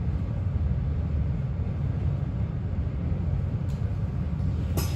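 Steady low rumble, with two light clicks near the end.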